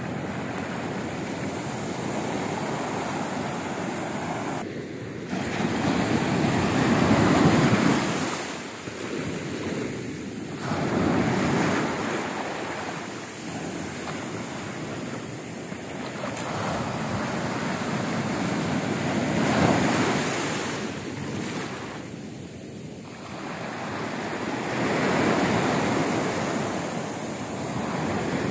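Indian Ocean surf: waves breaking in the shallows and foam washing up over the sand and back. The rush swells louder every few seconds as each wave comes in.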